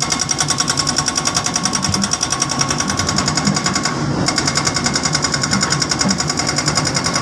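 Diesel engine running close by with a fast, even clatter that holds steady throughout.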